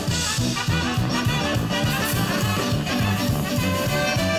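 Live brass band playing an upbeat tune, the trumpet to the fore over a steady beat.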